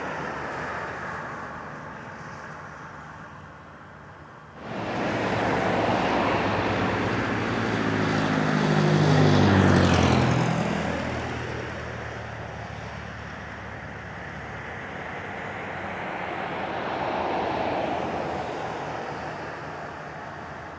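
Light aircraft passing close by: its engine sound comes in abruptly, swells to a peak and drops in pitch as it goes past, then fades away.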